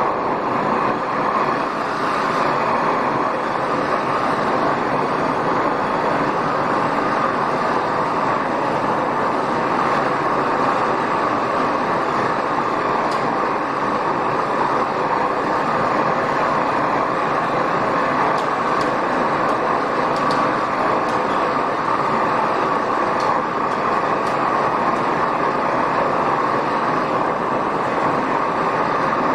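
Propane torch flame burning with a steady roar, heating a steel fuselage tube so it can be bent.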